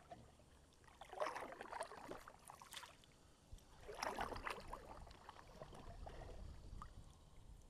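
Kayak paddle strokes: two splashy swishes of the blades through the water, about three seconds apart.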